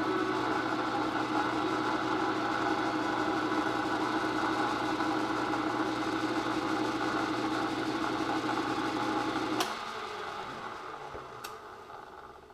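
Milling machine spindle running steadily with a 4-flute end mill boring into an aluminium block. About nine and a half seconds in there is a click and the machine winds down.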